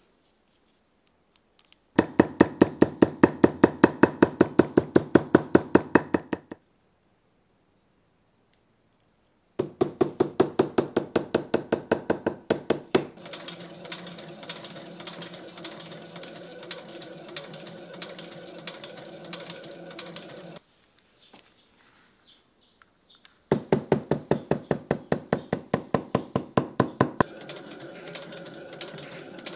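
Industrial post-bed sewing machine stitching a leather boot upper in several runs of even, rapid needle strokes, about five a second, with short pauses between runs. In the middle run and again near the end, the strokes give way to a steady motor hum.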